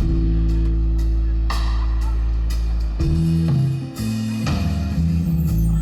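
Live band playing an instrumental passage between vocal lines: electric guitar chords over sustained bass notes and drum kit with cymbal hits, no singing.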